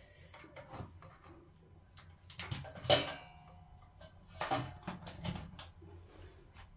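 Handling clicks and knocks as a 12-volt DC power plug is pushed into the radio, the sharpest click about three seconds in, with a few softer knocks after it.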